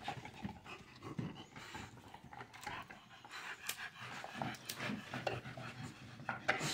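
American bully dogs panting while they play-wrestle and mouth at each other, with a few light clicks and knocks from the scuffle.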